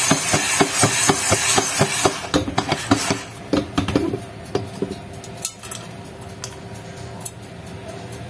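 Popcorn kernels rattling and clicking in a covered pot as it is shaken, a rapid run of sharp ticks about five a second. After about three seconds the rattling stops and scattered single pops follow as kernels burst under the lid: the corn has just begun to pop.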